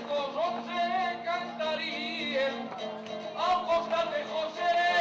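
Live jota: a man singing a verse with vibrato, accompanied by a small band of trumpet, trombone, clarinet and guitar. Near the end the wind instruments carry the tune.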